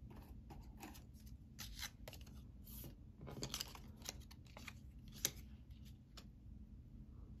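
Tarot cards being handled and shuffled: a run of short, crisp rustles and snaps at irregular spacing, the sharpest one a little after five seconds.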